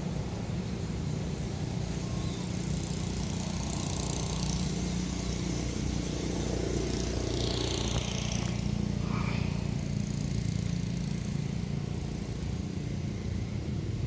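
A motor vehicle engine running steadily as a low, even hum, growing a little louder toward the middle, with a brief higher-pitched sound about eight seconds in.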